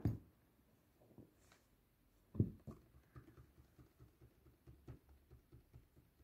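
A cat moving about and landing on soft furnishings: a soft thump at the start, a louder thump about two and a half seconds in, then a run of light taps and patter from its paws.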